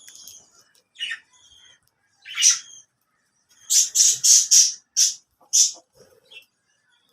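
Caged parakeets calling: a few short chirps, then about four seconds in a quick run of about six loud, harsh squawks.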